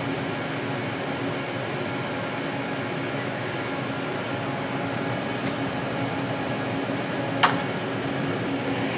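Steady hum of running PCB assembly machinery, with a single sharp click about three-quarters of the way through.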